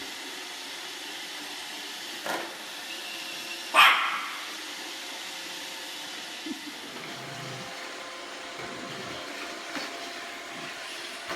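Robot vacuum cleaner running with a steady whir. A dog barks twice over it, a short bark about two seconds in and a louder one near four seconds.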